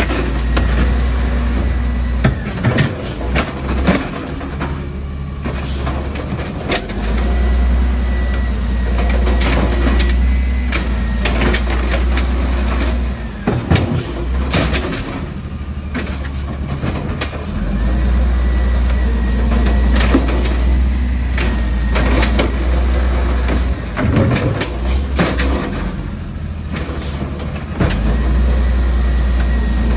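Automated side-loader garbage truck emptying recycling carts one after another. The engine revs up for several seconds each time the hydraulic arm lifts a cart, about three times. Sharp knocks and bangs come as the carts are shaken out into the hopper and set back down.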